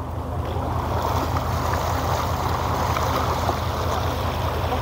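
Fishing boat's engine running steadily with a low throb, under the rush and splash of sea water moving past the hull.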